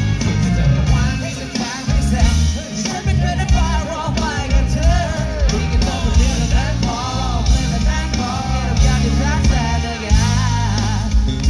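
Live band music through a concert PA: a male singer over drums, bass, electric guitar and keyboards, with heavy bass. Heard from among the audience.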